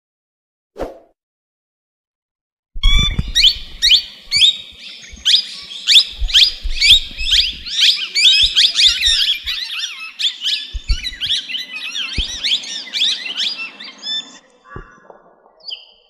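Many birds chirping and calling at once in a dense, overlapping chatter of quick high-pitched gliding notes. It starts abruptly about three seconds in and thins out near the end, with occasional low bumps underneath.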